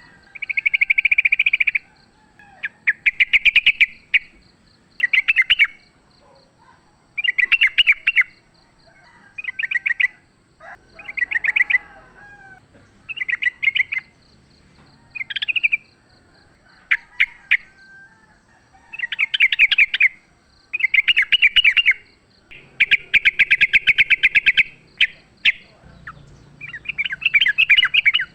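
Yellow-vented bulbul (trucukan) calling loudly in short bursts of fast, chattering notes, roughly one burst every second or two: the agitated 'fighting' call used as a lure for other bulbuls.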